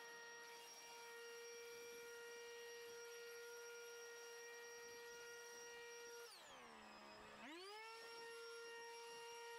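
Cordless leaf blower running with a faint, steady high-pitched motor whine. About six seconds in the whine winds down to a low pitch as the trigger is eased off, then spins back up to full speed a second later.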